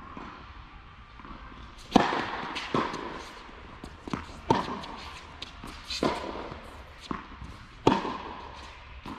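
Tennis rally: a tennis ball struck back and forth by racquets, sharp pops every second or so starting about two seconds in, each ringing in the echo of a large indoor tennis hall, with softer ball bounces between them.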